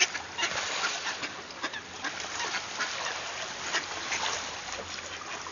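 A flock of mallard ducks quacking, with splashing from birds scrambling for thrown food on the water.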